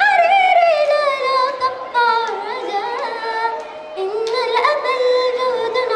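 A young girl singing an Arabic song into a microphone, drawing out long notes that glide slowly down in pitch and then climb again near the end.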